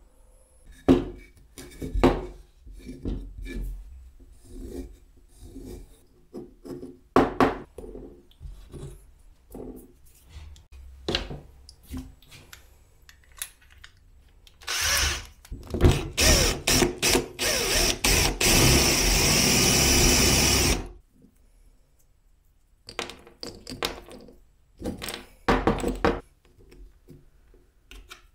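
Small pieces of abrasive grinder disc clacking and knocking as they are handled and set on a wooden block and the bench. About halfway through, an electric drill with a small bit drills into the disc pieces on the block, starting in short bursts, then running steadily for a few seconds and stopping abruptly; more knocks of handling follow.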